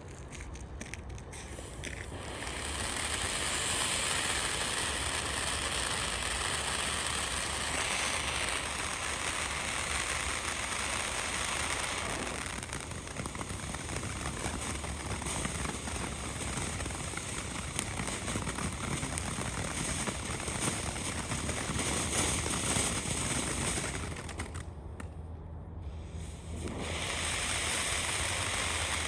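Planet X Bermuda Triangle firework fountain burning: a steady hiss of spraying sparks shot through with crackling. It builds up over the first couple of seconds and eases briefly about 25 seconds in before picking up again.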